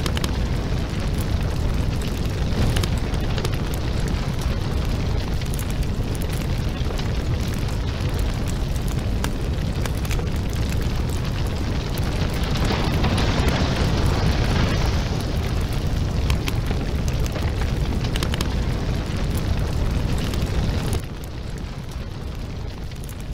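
Rumbling explosion and raging fire, with a steady low roar scattered with sharp crackles and pops. It swells into a louder rushing blast about halfway through, then falls away to a quieter burning roar near the end.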